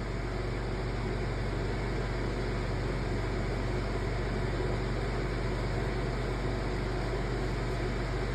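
Steady background hiss with a constant low hum, unchanging throughout, with no sneeze or other distinct sound.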